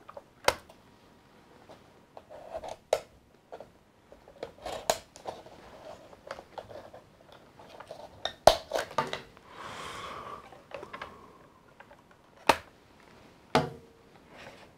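A handheld cutter snipping through the rubber bands that hold a cardboard insert to a plastic toy vehicle, with irregular sharp snips and clicks as the plastic and cardboard are handled, the loudest about half a second in and near the middle, and a short rustle about ten seconds in.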